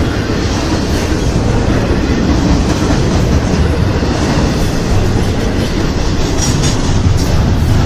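Intermodal freight train's cars rolling past, a loud, steady rumble with no horn sounding.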